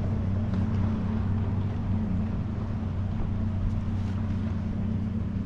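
A steady low motor hum, an unchanging drone with a hiss over it, which cuts off suddenly just after the end.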